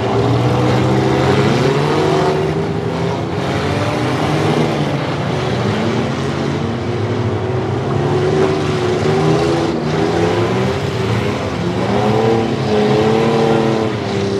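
Several demolition derby minivans, mini pickups and SUVs running and revving their engines at once, their pitches overlapping and rising and falling as they drive around the pit.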